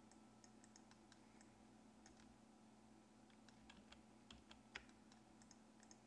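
Faint, scattered clicks of computer keyboard keys being pressed, among them Ctrl+Z undo presses, over near-silent room tone. The loudest click comes about three-quarters of the way through.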